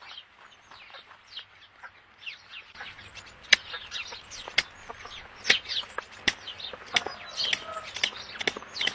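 Chickens calling: a steady stream of short, high, falling peeps with a few lower clucks near the end, and sharp clicks that come louder and more often from about three seconds in.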